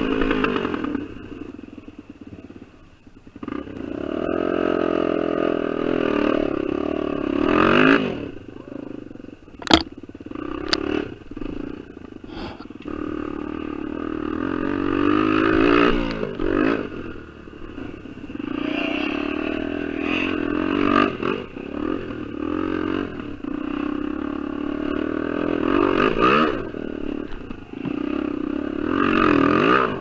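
Honda XR250R dirt bike's single-cylinder four-stroke engine revving up and falling back again and again over rough ground, with a few sharp knocks and rattles about ten seconds in.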